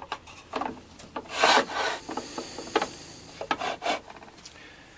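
Mitre gauge of a Bosch PTS 10 table saw being worked back and forth by hand, making a series of irregular rubbing and scraping strokes, the longest about a second and a half in. The gauge is set at its 0-degree click stop yet still moves: it has play.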